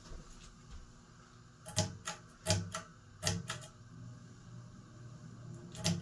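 Sharp clicks of the Sears/Emerson ceiling fan's pull-chain speed switch being stepped through its positions: a quick run of clicks about two to four seconds in, and one more near the end. Under them is the fan motor's low, steady hum.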